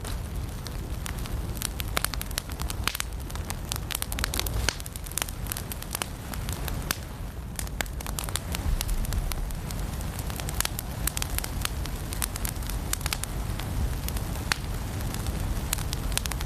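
Firewood burning in a fireplace, crackling with frequent irregular sharp pops over a steady low rumble.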